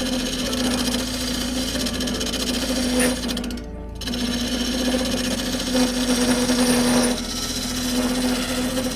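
Wood lathe running with a tool cutting the spinning wooden bowl, a steady hum under a fast, rattling chatter that stops briefly about three and a half seconds in, then resumes.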